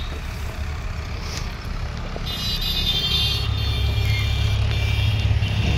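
John Deere 5405 tractor's diesel engine running steadily, picking up a little in loudness about two seconds in, when a high ringing tone joins it.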